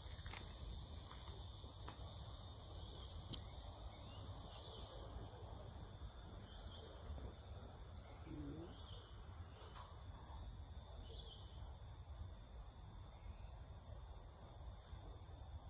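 A steady, high-pitched insect chorus, with a few faint bird calls now and then.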